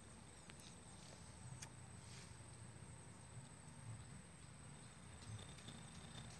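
Near silence: faint outdoor background with a thin, steady high whine and a few soft scattered clicks.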